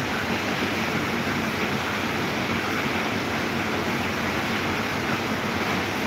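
Small desk fan running, a steady whir of motor and air rushing off the blades.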